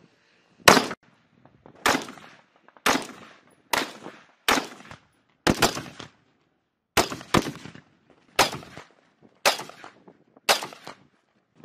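Rifle shots fired one at a time on an outdoor range, about a dozen, spaced roughly a second apart with a couple of quicker pairs, each crack followed by a short echo.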